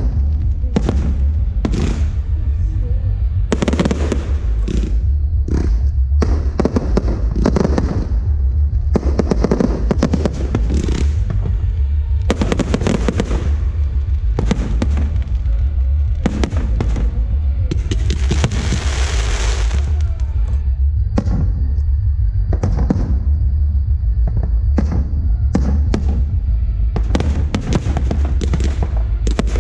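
Aerial fireworks bursting in rapid succession, sharp bangs one after another, with a dense stretch of crackling shells about two-thirds of the way through, over a continuous deep rumble.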